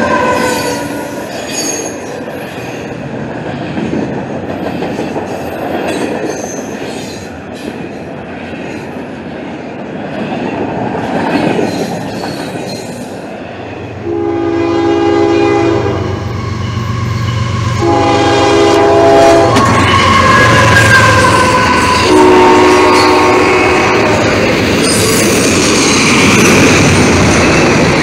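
Double-stack intermodal freight train rolling past, with steady wheel and car noise. About halfway through the sound cuts to another passing train. A locomotive horn sounds three times, each blast about a second and a half long, over a low engine rumble.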